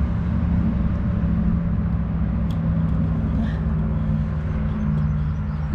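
A vehicle engine running steadily at idle: a low hum at an even pitch.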